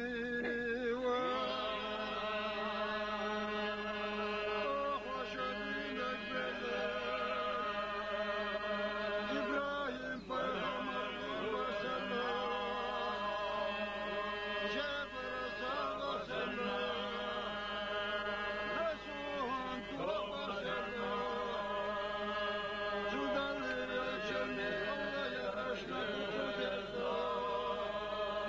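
Men's voices chanting together in long, wavering held notes over a steady low held tone, pausing briefly for breath a few times.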